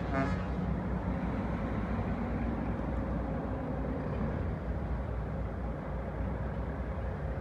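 Heavy dump truck's diesel engine running at low speed and idle, a steady low rumble, with tyre and engine noise from passing cars.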